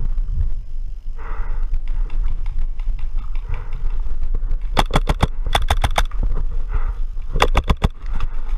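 Paintball marker firing three quick bursts of about four or five shots each, two about halfway through and one near the end, over a steady low rumble of wind and movement on the microphone.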